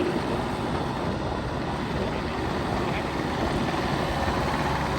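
Diesel engine of a JCB 1CXT tracked backhoe loader running steadily.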